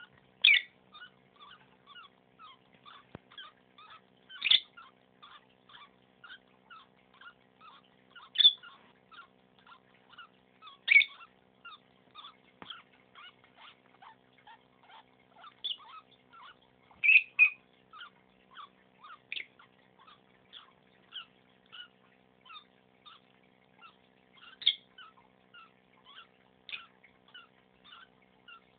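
A lovebird's laboured breathing, with a short high click or squeak at the end of each breath, repeating about two to three times a second, and a louder squeak every few seconds. The owner fears the clicking and wheezing are a sign that the bird is sick.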